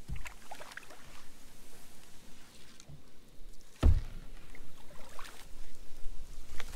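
Canoe being paddled with a wooden paddle: paddle strokes and water dripping, with small knocks and two dull thumps against the hull, one at the start and a louder one nearly four seconds in.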